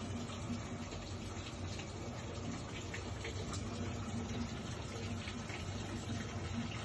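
Water running steadily into a washing machine tub as it fills, with a low hum underneath.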